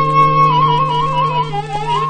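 Instrumental opening of a Korean Seodo sori folk song, from an old Victor 78 rpm record. A flute-like wind instrument holds a high note, then from about half a second in plays wavering ornamented turns over a steady low drone.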